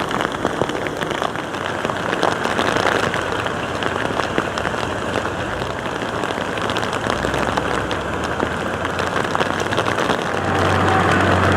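Heavy rain falling steadily, pattering on hard surfaces. Near the end a low, steady vehicle engine hum comes in.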